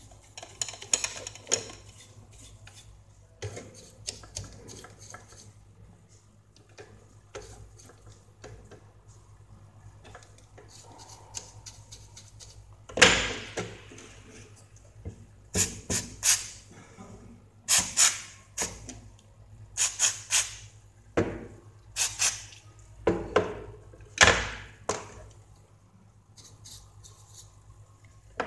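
A radio's circuit board being cleaned by hand. There is faint scratching and handling at first, then about a dozen short, sharp bursts of noise in the second half.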